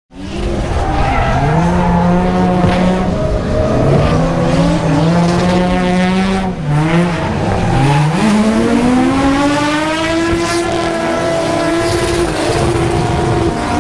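Drift cars' engines running hard at high revs, pitch rising and falling as the drivers work the throttle, with tyres squealing as the cars slide past in tandem.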